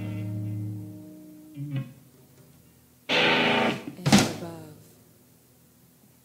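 Art-punk band's demo-tape music: a held guitar chord rings and fades over the first second and a half, a short stab follows, then two loud crashing hits about three and four seconds in ring out and die away.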